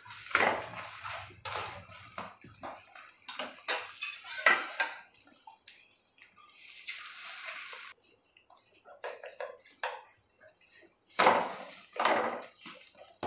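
Wooden spatula and a steel ladle scraping and knocking against a nonstick tawa as a paratha is flipped and egg mixture is spread over it: a run of short scrapes and knocks, a longer scrape about seven seconds in, and more scraping near the end.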